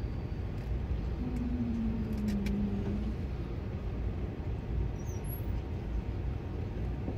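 Indian Railways passenger coach rolling slowly into a station, heard from inside the coach: a steady low rumble. A faint drawn-out tone slides down in pitch between about one and three seconds in.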